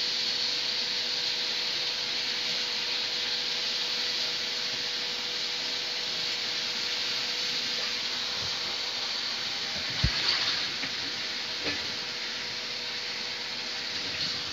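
Washed raw prawns sizzling steadily in a kadai of onion-tomato masala, with a short knock about ten seconds in.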